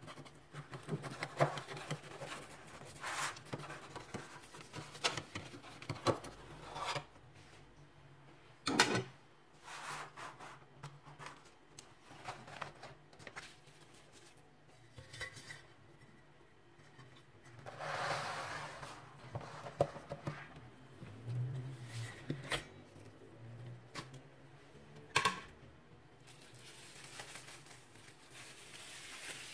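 Metal springform cake pan and a spoon being handled: scattered clinks, taps and scrapes with a couple of sharper knocks. Plastic cling film rustles as it is peeled off near the end.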